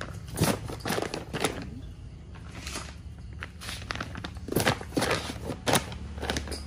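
Vacuum-sealed plastic bags of fish crinkling and rustling as hands lay them into a styrofoam box and press them down, with irregular sharp crackles of the plastic.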